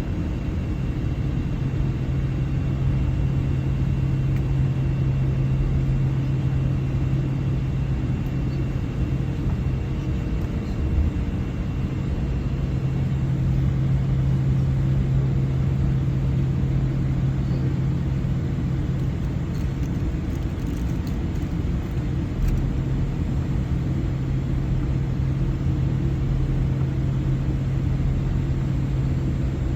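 Airliner jet engines heard from inside the passenger cabin: a steady rumble with a low hum and airflow noise, holding level throughout.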